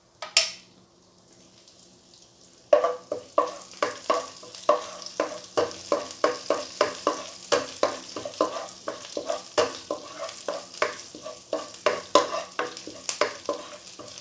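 Tempering of green chillies, curry leaves, cumin and urad dal frying in hot oil in a kadai, with a short sizzling burst near the start. From about three seconds in, a spoon stirs and scrapes against the pan at about three strokes a second over the sizzle.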